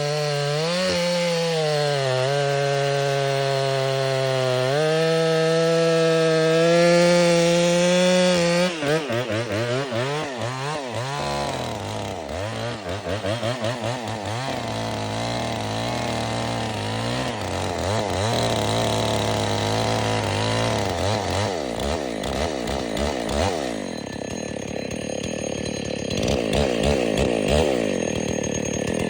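Chainsaw engine cutting wood. For the first third it holds a high pitch that sags and recovers as the chain bites. After that it revs up and down repeatedly, settling lower in between.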